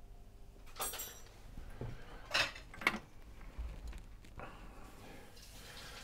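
A few light metallic clinks and taps from small tools being handled on the workbench: one about a second in with a brief high ring, then two more a little after two seconds in.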